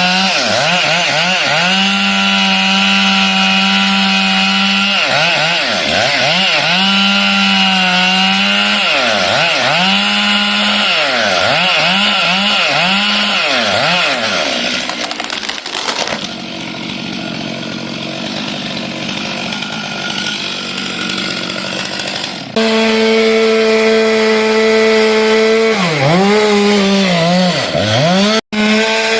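Petrol chainsaw running at high revs cutting up a felled tree. Its engine speed sags and picks up again and again as it bites into the wood and the throttle is eased. It is quieter and muffled for several seconds past the middle, then loud again all at once.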